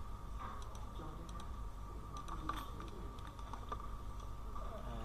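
Scattered computer keyboard keystrokes and mouse clicks, a few irregular taps a second, over a steady background hum.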